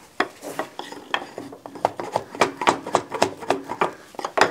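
Small metal parts clinking, tapping and scraping as a sleeve is worked by hand onto a reel mower's groomer unit: a quick, irregular string of light clicks and knocks.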